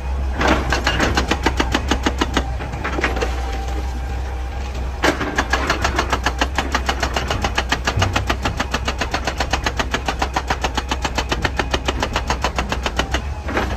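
Excavator-mounted hydraulic breaker hammering rock at about ten blows a second, in two runs: a short one of about three seconds, then, after a pause of about two seconds, a longer one of about eight seconds. Under it runs the steady drone of the excavator's diesel engine.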